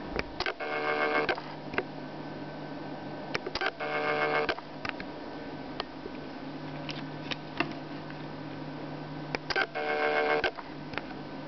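UNI-T UT61E digital multimeter's built-in buzzer beeping three times, each a buzzy tone just under a second long, with light clicks from the test leads being handled in between.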